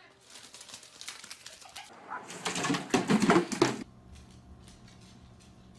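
Sticky lint roller sheets stuck to a cat's paws crackling and clicking against a tile floor as the cat scrabbles to walk. The clicking is loudest from about two seconds in, then cuts off sharply a little before four seconds, leaving a faint steady hum.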